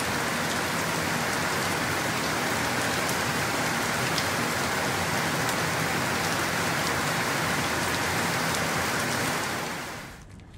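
Steady rain falling, an even hiss with scattered sharp drop ticks, fading out near the end.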